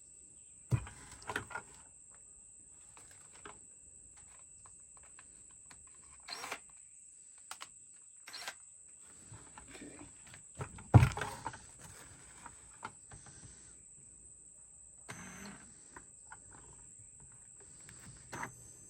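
Scattered knocks and clatters of a plastic bucket and tools being handled, with a sharp loud knock about a second in and the loudest one about eleven seconds in.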